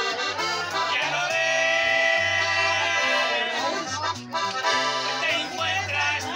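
Button accordion playing a melody, holding a long chord for about two seconds near the start, over a line of low bass notes.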